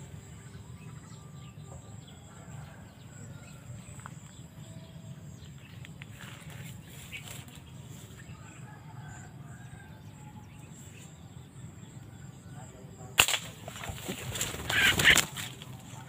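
Faint forest background with a few soft bird chirps. About three seconds before the end comes a single sharp crack, followed by about two seconds of rustling and flapping among bamboo leaves.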